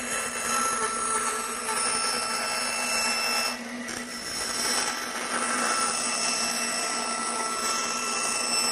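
Band saw with a half-inch blade running and cutting through wood on a rough cut: a steady motor hum with constant tones under the hiss of the blade in the wood. The sound dips briefly about three and a half seconds in.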